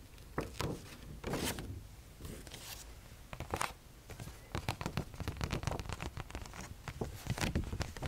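A paper fact card handled close to the microphone: a run of soft crinkles, rustles and light taps.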